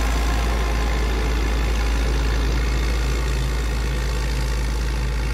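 Caterpillar 140K motor grader's diesel engine running with a steady low rumble as the grader moves off blading crushed rock, fading slightly as it draws away.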